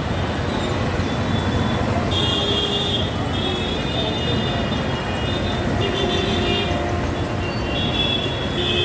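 Mumbai suburban local electric train running between stations, heard from inside a coach: a steady rumble and rattle of the moving train, with high thin tones that come and go.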